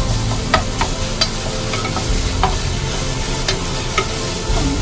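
Wooden spatula stirring minced pork in a stone-coated pot, with irregular scrapes and taps against the pot over the sizzle of the frying meat.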